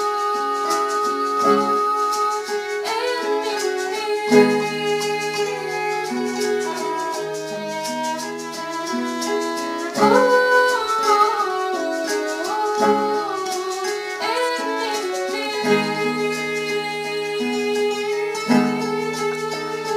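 Music from a song: a melody moving over sustained bass notes that change every second or two.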